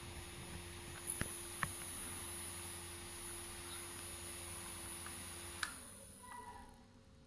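Small DC toy motor of a homemade electric fan kit running with a steady whine, with a few light clicks. Near the end there is a click, then the motor's pitch falls as it spins down and stops.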